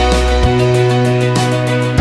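Background music: held notes over a bass line, with a regular beat.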